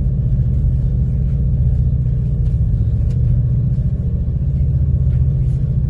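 Steady low engine rumble, running evenly with no change in pitch.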